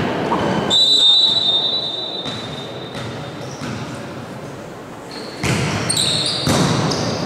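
A referee's whistle sounds in one long steady blast about a second in, the signal for the serve. Near the end come sharp ball strikes and sneakers squeaking on the hardwood court as the volleyball rally starts.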